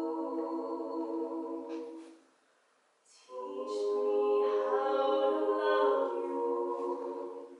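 Vocal trio of two women and a man singing a cappella in sustained harmony. A held chord fades out about two seconds in, and after a short pause a second long phrase follows, with its notes held.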